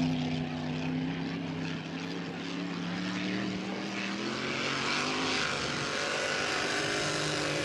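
Grand Prix class racing hydroplane's engine running at high speed, its pitch rising over the first few seconds, with a rushing hiss building about halfway through.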